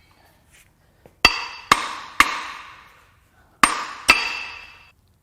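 Hammer blows on an engine's main bearing cap, five sharp metallic strikes that ring on: three in quick succession, then two more after a short pause. The hammering is meant to jar loose a main cap whose bolts are seized.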